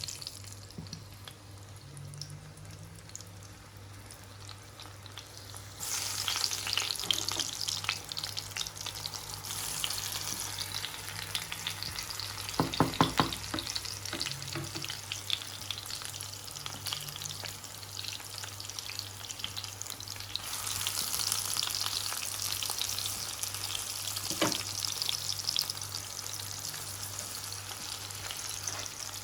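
Aubergine and tomato slices sizzling as they fry in hot ghee in a frying pan. The sizzle gets suddenly louder about six seconds in and again about twenty seconds in, with a quick run of knocks against the pan around halfway and a single knock a few seconds later.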